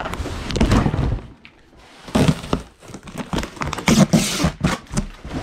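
Rummaging through cardboard cartons of electronic parts: irregular knocks and thumps of boxes and items being moved, with rustling and crinkling of a clear plastic bag, loudest about four seconds in.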